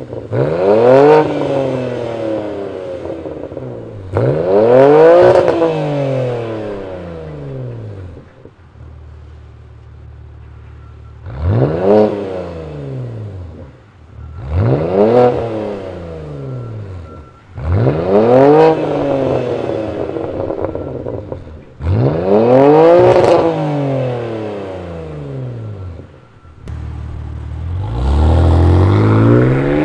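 BMW G80 M3's twin-turbo S58 inline-six, fitted with an aftermarket exhaust, revved six times while standing still, each rev rising quickly and falling back to idle. Near the end the car pulls away under acceleration.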